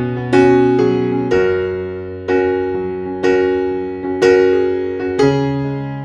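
Background music: slow electric piano chords, a new chord struck about once a second and left to ring and fade.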